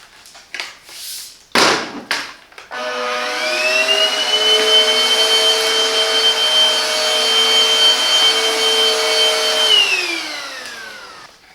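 Silvercrest cordless cyclone vacuum cleaner switched on after a sharp click. Its motor spins up with a rising whine, runs steadily for about seven seconds, then is switched off and winds down with a falling whine.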